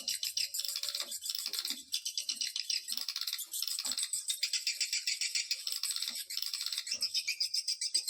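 Recorded swiftlet call: a dense, fast, high-pitched rattling chatter of edible-nest swiftlets, played as a lure sound to attract swiftlets to nest.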